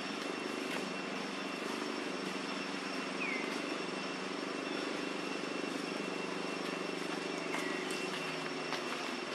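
Steady low engine drone with a constant thin high whine over it, and a few short falling chirps, one about three seconds in and another near the end.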